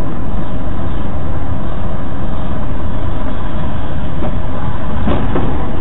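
Loud, steady road and wind noise of a car driving on a wet road, picked up by a dashcam microphone.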